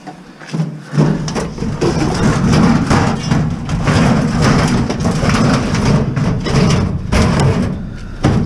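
A heavy old tank being shoved and dragged into the back of a car: about seven seconds of continuous, loud scraping and bumping, starting about a second in.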